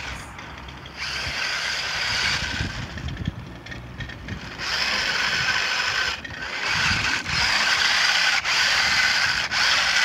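Toy remote-control monster truck's electric motor and gears whirring as it drives over snow, in bursts: a short run, a lull, then a longer run from about halfway.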